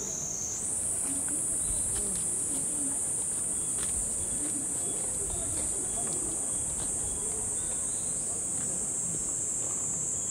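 A chorus of cicadas singing: a dense, steady, high-pitched buzz that steps up in pitch about half a second in and holds.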